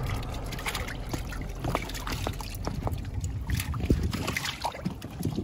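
Water lapping and trickling against a fiberglass boat hull, with many small irregular splashes and ticks.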